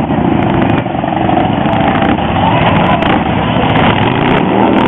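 Motorcycle engines running steadily as several motorcycles ride past at parade pace.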